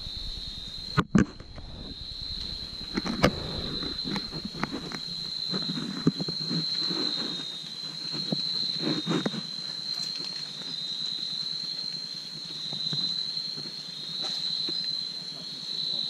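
Night insects calling in a steady high-pitched drone, with rustling and cracking of branches, leaves and vines as a person climbs in a tree; sharp knocks come about a second in and again around three seconds.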